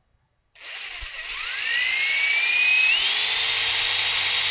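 Corded electric drill with a 7/16-inch bit starting about half a second in and boring a depth-marked pilot hole into the wooden bench top. Its motor whine rises as it speeds up, climbs again about three seconds in, then holds steady at full speed.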